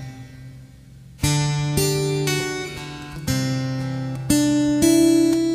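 Music: an acoustic guitar strumming slow chords, each left to ring, with a short quiet gap at the start before the next chord comes in.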